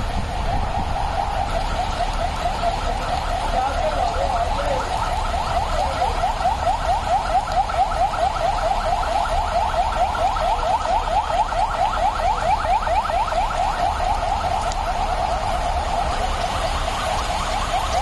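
Police escort vehicle sirens sounding in a fast yelp, rapid rising sweeps several a second, with the pulsing growing stronger about six seconds in, over a steady hiss of heavy rain on the road.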